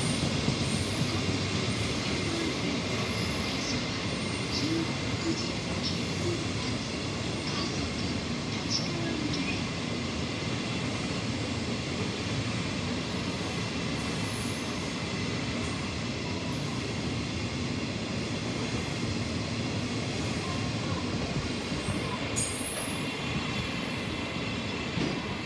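Hopper wagons of a twenty-car limestone freight train rolling steadily through a station: a continuous rumble of steel wheels on the rails, with faint wheel squeals now and then.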